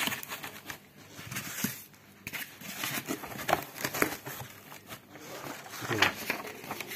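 Packing materials being fitted into a box: irregular rustling, crinkling and light knocks of plastic and polystyrene foam sheet.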